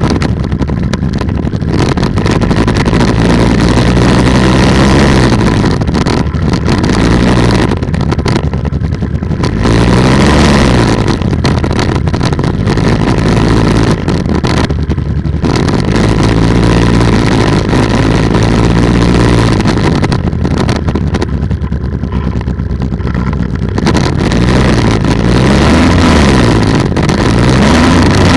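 Polini 190 single-cylinder two-stroke engine running steadily on an ATF trike, its pitch rising and falling several times, with rough wind noise on the microphone.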